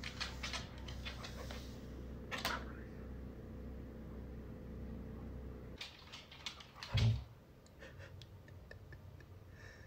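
Husky doing silent barks: soft, breathy huffs with no voice in them, one clear huff a couple of seconds in and a low soft thud about seven seconds in. Under them are a faint steady low hum for the first half and a few light clicks.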